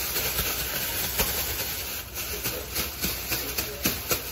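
Thin plastic grocery bag rustling and crinkling right at the microphone as it is handled and shaken, with several sharp crackles in the second half.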